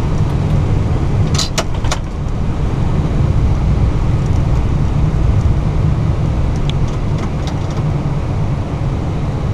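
Cockpit noise of an Airbus A320 rolling slowly on the runway after landing: a steady low rumble from the idling engines and the airframe. A few sharp clicks sound about a second and a half in.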